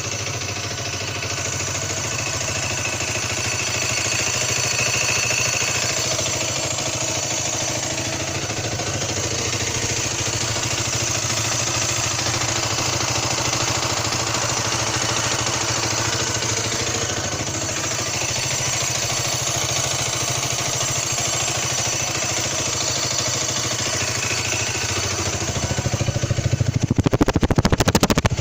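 Fuel-injected Derbi DRD 125 motorcycle engine idling hot, with a faint high-pitched squeak or whistle over the idle. The owner places the squeak inside the engine, heard only when hot and at idle or very low revs. Near the end the engine sound gets louder and rougher for a couple of seconds.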